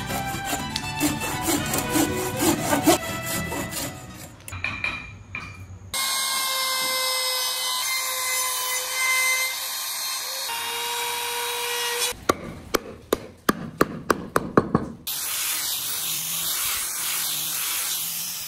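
A hand saw cuts through Fokienia wood in quick rhythmic strokes. Then a compact trim router runs with a steady high whine as it cuts a recess into the wood, its pitch shifting slightly twice. Near the end come a quick run of sharp knocks and then a steady rushing power-tool noise.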